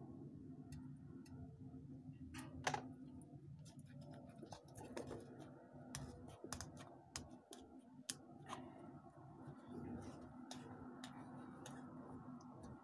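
Scattered light clicks and taps of steel pliers and a 3D-printed resin bullet mold being handled with gloved hands, with a louder knock about two and a half seconds in. The mold's lid is being worked free, stuck because the resin has swelled with the heat of casting.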